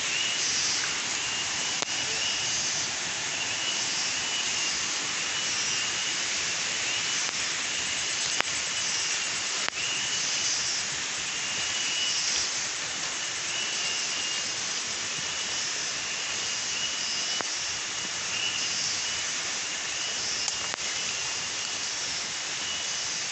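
Steady, high-pitched drone of forest insects, with a pulsing call that repeats every couple of seconds. A few sharp clicks stand out from it.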